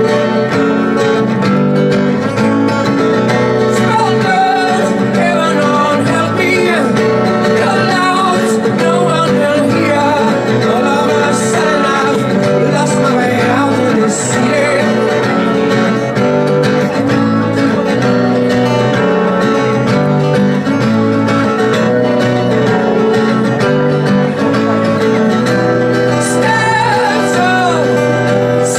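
Live acoustic music: plucked strings playing steadily, with a voice singing over them at times.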